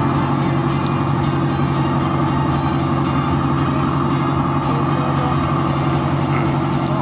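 A steady engine drone with a constant low hum that does not change in pitch or level.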